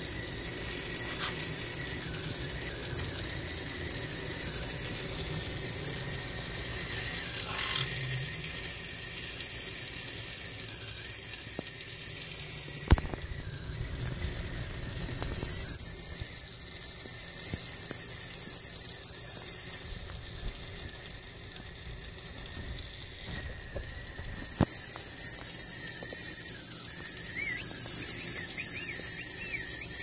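Steady hiss of water running from a hose and splashing onto wet concrete, growing louder around the middle. A single sharp click is heard about 13 seconds in.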